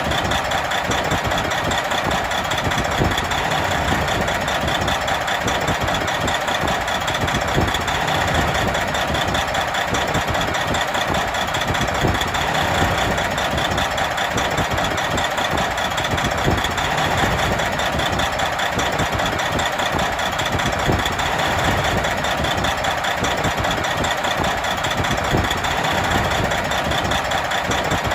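Big truck's diesel engine idling steadily, with a rapid, even low clatter.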